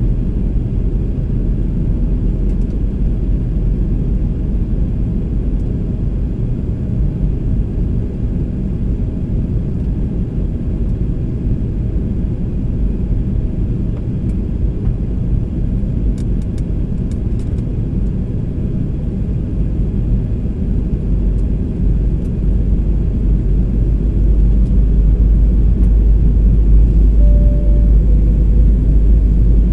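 Inside the cabin of a jet airliner in descent: a steady low rumble of engines and airflow, growing a little louder near the end.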